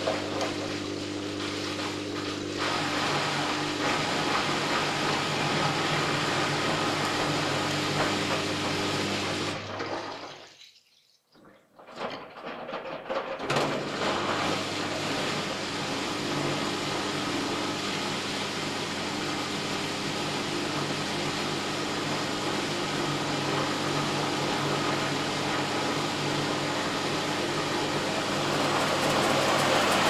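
Washing machine running, with water rushing and a steady motor hum. About ten seconds in it fades to near silence for roughly three seconds, then the water and hum start up again.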